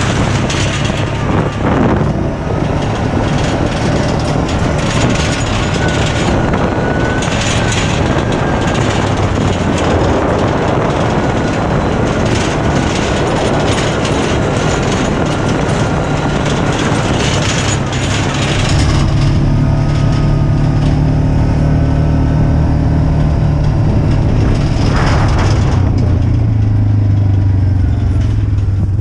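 A farm vehicle's engine running steadily over rough ground, with rattling. About two-thirds of the way in, its note settles into a clearer, even hum.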